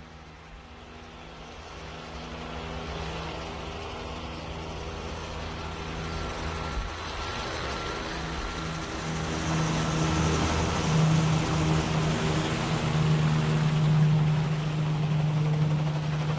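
Recorded vehicle sound effect from a surround-sound demo: a steady low engine hum under a wash of noise that grows steadily louder, as if the vehicle is approaching.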